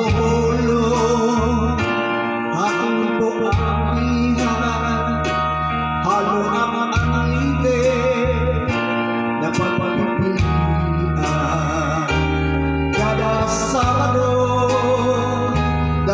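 Music: a vocal melody sung with vibrato over guitar and sustained bass notes that change every second or two.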